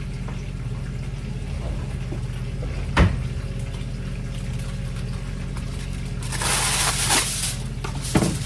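A single sharp knock on the counter about three seconds in. Near the end comes a rustling, crinkling sweep of aluminium foil being pulled off its roll, then a smaller knock, all over a steady low kitchen hum.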